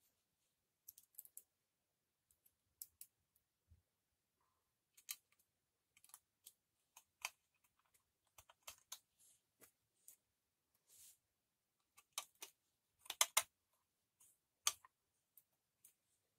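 Scattered small metal clicks and taps of a hand key and screws against the muffler of a petrol trimmer as the muffler screws are fitted and turned in. A quick cluster of louder clicks comes about 13 seconds in.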